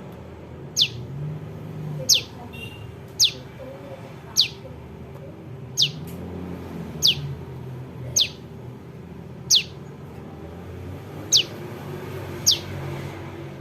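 Young prenjak lumut calling: a sharp, high note that sweeps downward, repeated about ten times at a little over a second apart, over a steady low background rumble.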